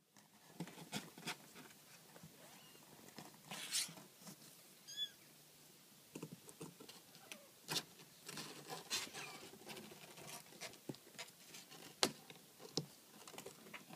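Kittens and their mother cat shuffling and scratching in a cardboard box: irregular light scratches, taps and claw clicks on cardboard, the sharpest click about twelve seconds in. A faint high squeak about five seconds in.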